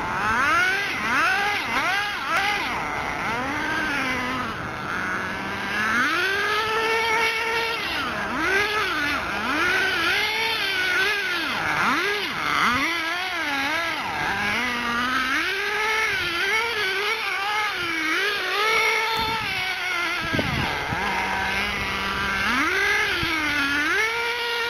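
Small two-stroke nitro engine of an RC touring car, a ported VX.18, revving up and down as the car is driven, its pitch climbing and falling every second or so. A few times it drops back to a low, steady idle note for about a second before revving up again.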